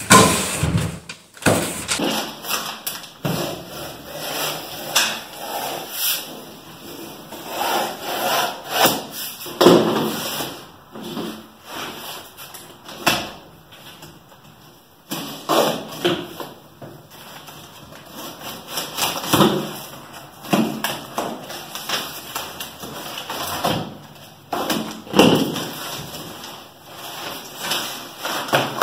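Packaging being handled and unwrapped from G10 fiberglass sheets: irregular rustling and scraping, broken by occasional knocks and thuds.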